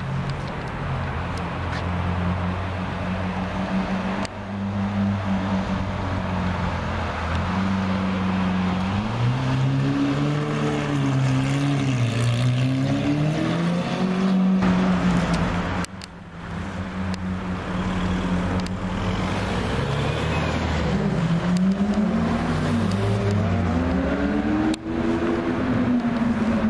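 Lamborghini Aventador LP700-4's V12 engine running at low revs with a steady deep note, then revved several times, the pitch rising and falling repeatedly; the revving comes in two spells, with a brief break between them.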